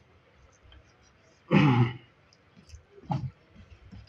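A person clears their throat with a short cough about one and a half seconds in, then makes a second, shorter throat sound about three seconds in.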